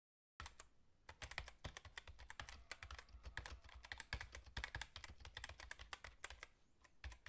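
Keyboard typing sound effect: a quick, irregular run of faint key clicks, starting about half a second in.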